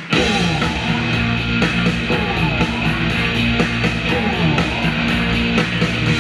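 Loud rock-style runway music with a steady beat and heavy bass. A new, fuller section comes in sharply right at the start.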